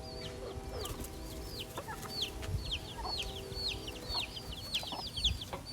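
Chicks peeping: many short, falling cheeps, overlapping several to the second, with a faint steady hum underneath at times.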